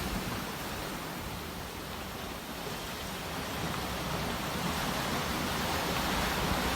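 Sea waves washing ashore: a steady rushing hiss that eases off, then slowly swells again toward the end.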